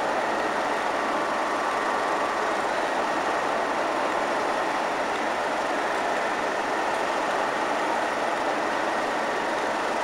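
Diesel engines of a pair of Class 37 locomotives, English Electric V12s, running steadily at a constant note with no revving.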